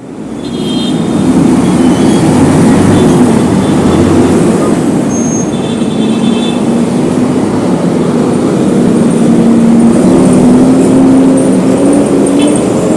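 Busy road traffic close by: a steady wash of passing vehicles with a large engine running near the microphone, its hum rising slightly in pitch through the middle.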